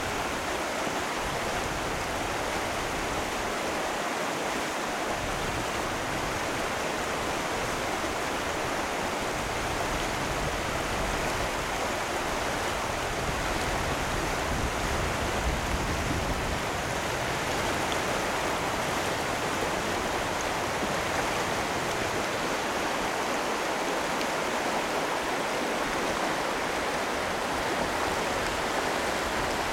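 Mountain river rushing steadily over rocky riffles and rapids.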